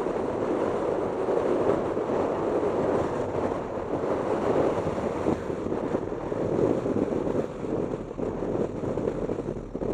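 Steady rushing road and wind noise from a car driving, with gusting wind on the microphone.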